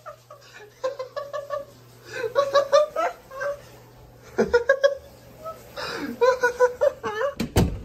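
A person laughing in short giggling bursts, with a loud thump near the end.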